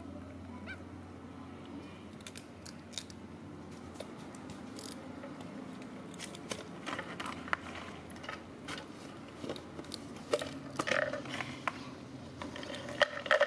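Baby macaque chewing food, with scattered small crunching and smacking clicks. The sounds grow busier and louder near the end.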